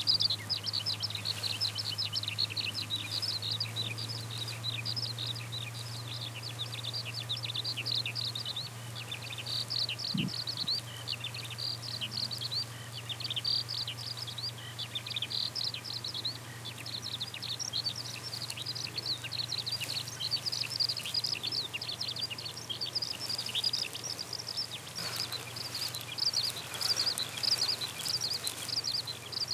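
Eurasian skylark singing a long, unbroken song of rapid high chirps and trills without pause, over a steady low hum.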